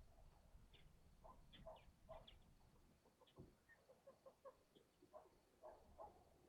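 Faint, short clucking bird calls, repeated irregularly several times, with a few thin high squeaks among them.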